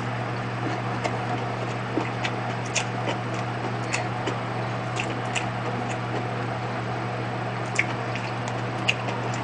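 Close-up wet chewing of a mouthful of gimbap: soft squishy mouth sounds and small lip and tongue clicks, over a steady low hum.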